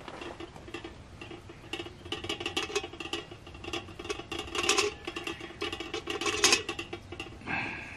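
Irregular clinks and rattles of metal camp cookware and utensils, a few to several a second, with a faint ringing tone carrying under them.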